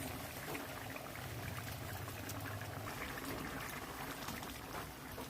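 Fish curry simmering in a pan: a steady bubbling with small pops, under a low hum that fades out about three seconds in.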